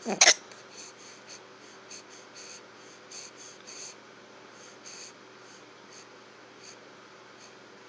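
A person hiccuping once, a loud sudden double catch right at the start, followed by faint scattered ticks.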